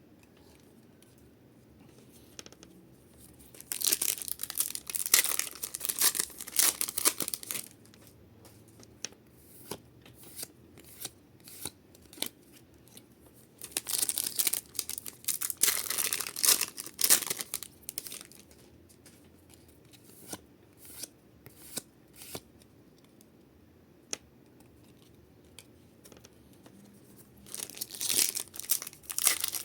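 Foil Pokémon card booster pack wrappers being torn open and crinkled in three bursts, with light ticks and rustles of cards being handled between them.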